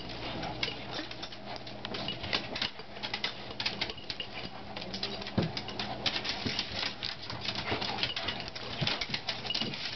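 Two small dogs play-wrestling on a hardwood floor: rapid, irregular clicking and scrabbling of claws on the wood, with scuffling of bodies and fur.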